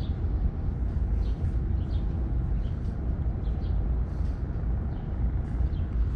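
Steady low rumbling outdoor noise that flickers in level, with a few faint short high chirps over it.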